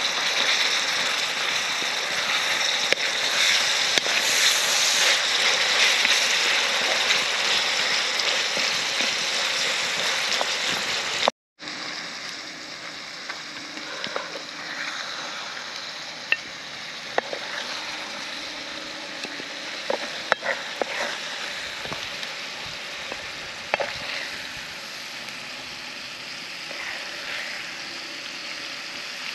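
Tomatoes, peppers and onions sizzling in a black frying pan over campfire coals. The sizzle is loud and even at first, then after a brief cut runs quieter, with scattered clicks and scrapes of the wooden spatula against the pan and plate as the vegetables are scooped out.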